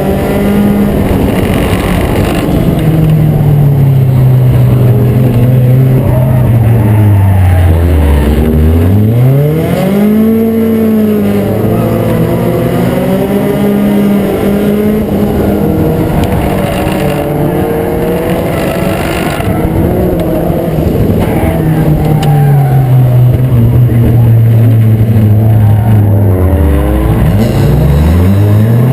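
Acura Integra race car's four-cylinder engine running hard in a short-track race. Its note falls to a low point about nine seconds in and again near the end, then climbs back up each time as the car backs off and accelerates again.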